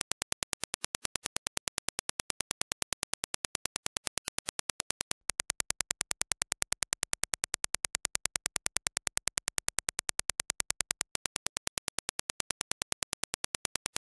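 A rapid, evenly spaced train of sharp test clicks: reference Dirac impulses. A little over five seconds in they switch to the same impulses played back through Audeze LCD-1 planar-magnetic headphones and picked up by a measurement head, slightly louder. About eleven seconds in the reference clicks return.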